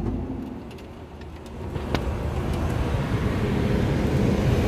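Jet cockpit noise: the steady low rumble of the engines and airflow, dipping briefly in the first second and then building and holding from about two seconds in, with a few faint clicks.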